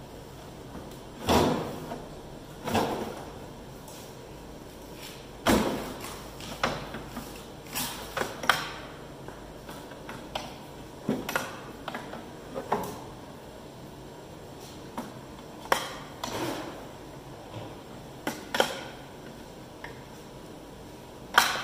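Wrench clinking and knocking against the steel pedal assembly of a Massey Ferguson combine as it is worked loose, in irregular metal knocks, a few of them loud.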